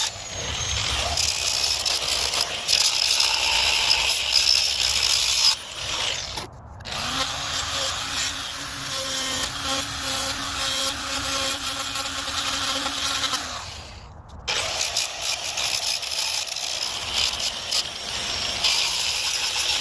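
Power carving tool running and grinding into wood, a steady motor hum under a coarse, hissing cutting noise. The sound breaks off abruptly twice and resumes.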